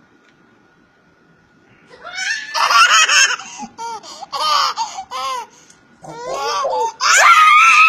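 An 11-month-old baby laughing in repeated giggling bursts that start about two seconds in, growing louder and ending in a high, rising squeal.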